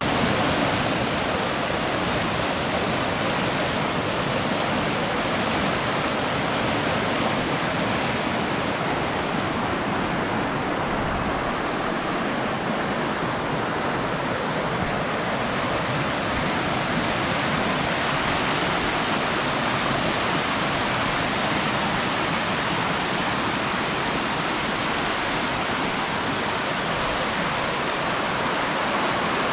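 Waterfall on a mountain river: a steady, unbroken rush of falling water.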